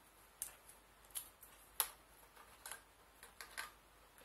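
Clicks and taps from a U-shaped phone holder being fitted onto a Weifeng WT3110A tripod head by hand: about half a dozen sharp, irregular clicks, the loudest a little under two seconds in.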